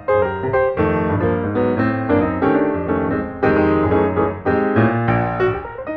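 Piano music: a quick run of struck notes over a steady low bass line.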